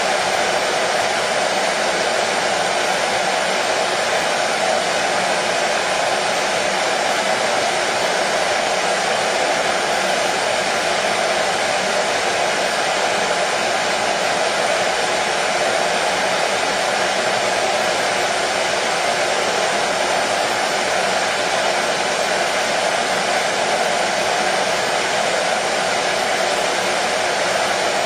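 Hair dryer running continuously: a steady, even whoosh of blowing air and fan motor, strongest in the middle range, without change or break.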